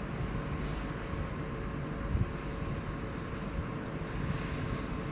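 Steady rumble of jet aircraft engines near the airport, with wind buffeting the microphone.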